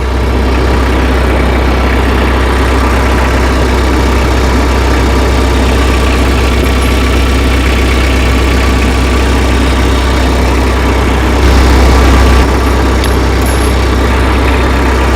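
Tractor engine idling steadily, with a louder stretch lasting about a second near the end.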